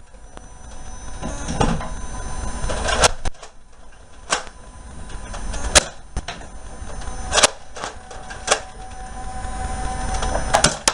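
Nerf dart blasters being primed and fired: about six sharp snaps spaced a second or so apart, over shuffling movement.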